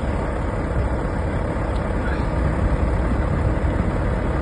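Diesel truck engine idling, a steady low rumble.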